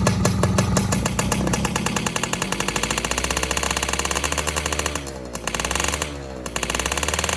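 Yamaha Fiz R's 110cc single-cylinder two-stroke engine, modified for racing, running fast with a rapid, rattling exhaust note. In the second half the revs fall away and climb again twice.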